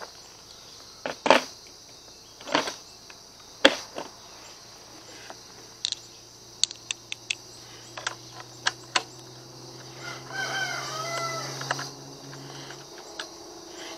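Nut driver clicking and tapping against the small cowl nuts of a Briggs & Stratton engine as they are loosened, in scattered sharp clicks. About ten seconds in a rooster crows once in the background, over a steady high insect drone.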